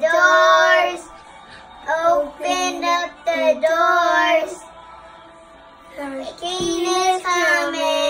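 Young boys singing a Christian rock song in three sung phrases with short pauses between them.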